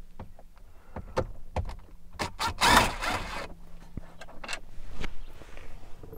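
Clicks, taps and rattles of a hand tool and small parts as Torx screws are taken out of a truck's dash trim, with a louder rattling scrape about two and a half seconds in.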